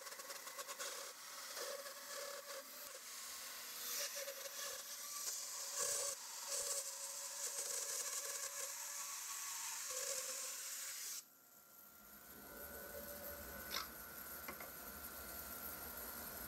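Harvey C14 bandsaw resawing a tall walnut board with a coarse, aggressive blade: a dense hissing rasp of the teeth tearing through the wood, with scattered ticks. About eleven seconds in the cutting sound stops abruptly, leaving the saw running with a low hum and a steady thin whine.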